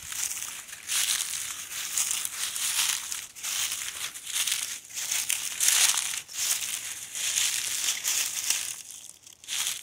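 Footsteps crunching through dry leaf litter on a wooded hillside, one crunch about every second at a steady walking pace.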